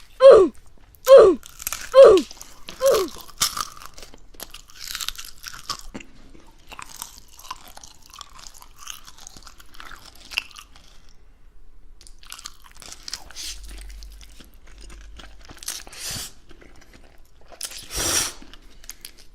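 Close-up chewing and crunching of food, a soft, irregular crackle through most of the stretch. It opens with about four short, loud cries that fall in pitch, and a louder crunch-like burst comes near the end.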